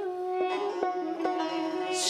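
Plucked string instrument playing an instrumental mugham passage: single notes picked roughly twice a second over a held tone.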